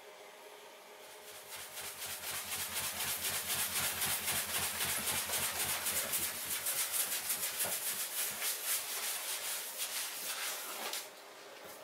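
A hand scrubbing the wet, foamy bottom of an acrylic bathtub in quick rhythmic strokes, several a second. It starts about a second in and stops shortly before the end.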